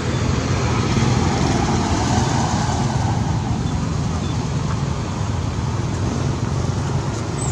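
Steady low background rumble with an even hiss above it, and a brief high chirp near the end.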